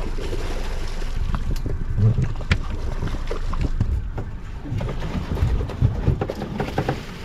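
Wind rumbling on the microphone and water against a small boat's hull, with scattered light knocks and clicks.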